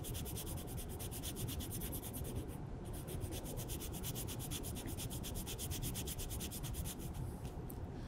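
A small piece of sandpaper rubbing back and forth on a rubber bicycle inner tube in quick, even strokes. It is roughening the tube around the puncture so that the patch glue can stick.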